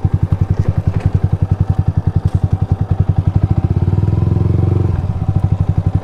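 Yamaha R15M's single-cylinder engine running at low revs with an even, rapid putter, about a dozen pulses a second. About four seconds in the revs rise briefly, then settle back.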